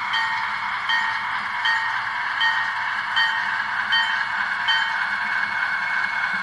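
Model Alco diesel switcher approaching with its locomotive bell sound ringing about once every three-quarters of a second, over a steady hissing engine-and-motor sound. The bell stops about five seconds in while the running sound goes on.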